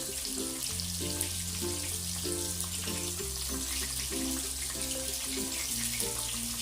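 Background music with held bass notes and short repeated chord notes, over the steady hiss of Nestum-coated prawns deep-frying in oil.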